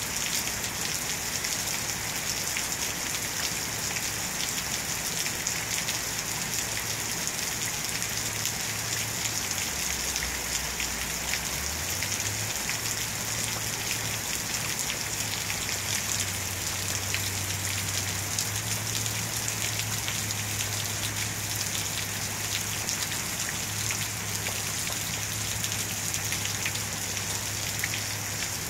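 Steady rain falling on a lawn, a driveway and parked cars: a dense, even hiss of countless drops.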